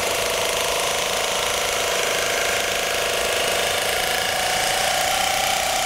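Pneumatic air nibbler cutting 18-gauge sheet steel: a loud, steady, rapid chattering buzz that holds one pitch throughout.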